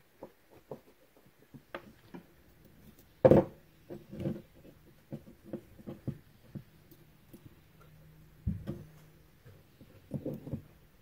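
Small metal parts of an oil cooler thermostat valve and its coil spring being handled and set down on a workbench: scattered light clicks and taps, with a sharper knock about three seconds in and another a little past eight seconds.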